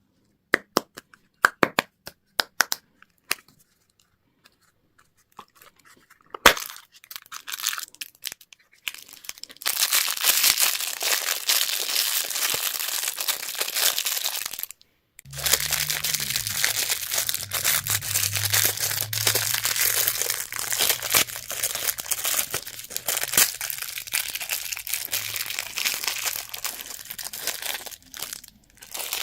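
Plastic candy wrapping being torn open and crinkled, with a few sharp clicks at first and then a dense continuous crackle. After a brief pause about halfway, the crinkling resumes with a low hum underneath.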